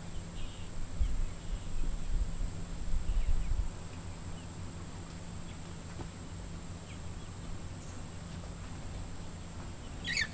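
Insects droning in a steady high-pitched buzz, with low rumbles about one to four seconds in and a brief call just before the end.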